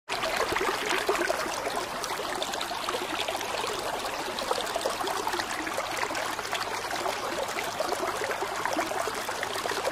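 Steady running, trickling water: an even splashing hiss with many small crackles.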